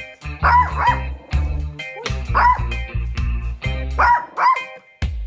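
Small Maltese dog barking several times, mostly in pairs about half a second apart, over background music with a steady bass line.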